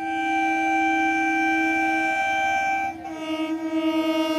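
Electric multiple unit train's horn: one steady blast held for about three seconds, then a slightly lower, wavering blast that grows louder as the train approaches.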